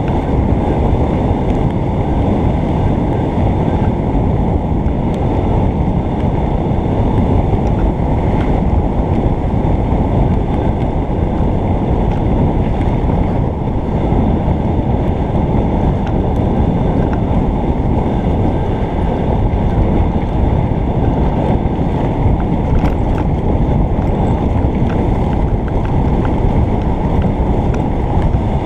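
Mountain bike descending a dirt trail, heard from a helmet-mounted camera: steady loud wind buffeting on the microphone and tyre rumble, with faint clicks and rattles over it.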